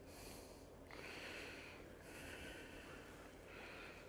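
A person's faint breathing close to the microphone: four soft breaths in and out, about one a second.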